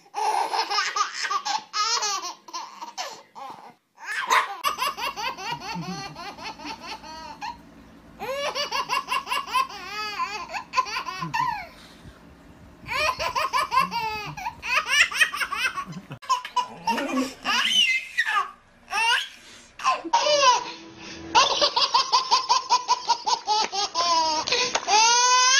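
Babies laughing hard in long runs of rapid, pulsing giggles and belly laughs, broken by a few short pauses.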